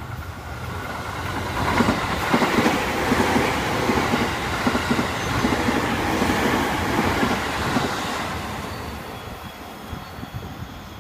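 Musashino Line electric commuter train passing close by: a rising rush as it approaches, then several seconds of rhythmic wheel clatter over the rail joints, fading away over the last few seconds.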